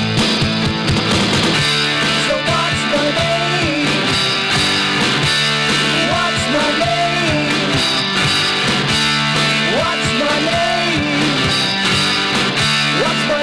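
Rock music in an instrumental break with no singing: an electric guitar plays a lead line with bends and slides over a steady beat.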